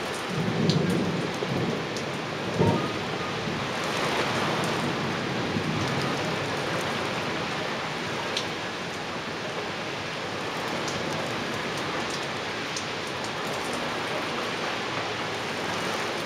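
Heavy downpour: a dense, steady hiss of rain falling on tiled roofs, with a few sharp ticks. A low rumble and a sharp thump come in the first three seconds.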